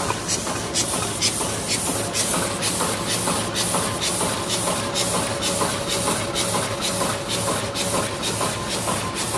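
Ruida RD-12/22-100A high-speed paper cup machine running, with a steady mechanical din and a sharp hiss that repeats evenly about two to three times a second.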